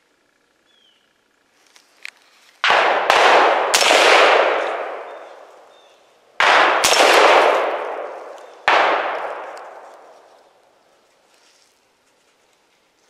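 Six loud gunshots from hunters firing nearby, three in quick succession and then three more a few seconds later, each followed by a long echo rolling away through the woods.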